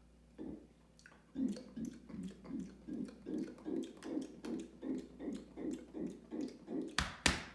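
A person gulping soda in a quick run of swallows, about three a second, then two sharp knocks near the end.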